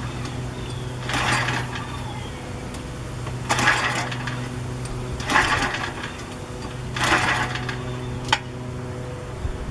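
A small electric motor hums steadily. Over it come short noisy bursts, one about every two seconds, and a single sharp click near the end.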